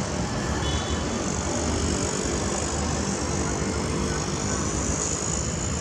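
A State Railway of Thailand GE diesel-electric locomotive's engine runs with a steady low rumble as the locomotive rolls slowly into the platform. A thin high whine grows louder near the end.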